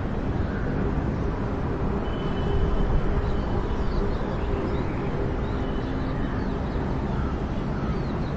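Steady low outdoor rumble with faint, scattered bird chirps above it.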